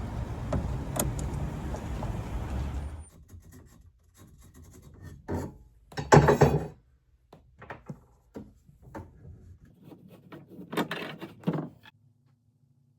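Steady vehicle road noise that cuts off about three seconds in, followed by a series of irregular knocks, rattles and rubbing from things being handled, loudest about six seconds in and again near the end.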